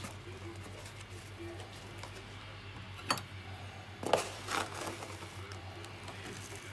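Cardboard carton of fine salt being handled: a sharp click about three seconds in, then a brief rustle about a second later, over a steady low hum.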